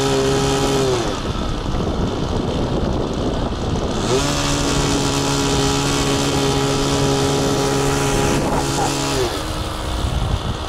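Four-stroke glow engine of an ASP 61 on a flying RC model plane running at steady throttle. Its note fades out about a second in, returns about four seconds in, then falls in pitch and fades about nine seconds in. A steady low rumbling noise runs underneath.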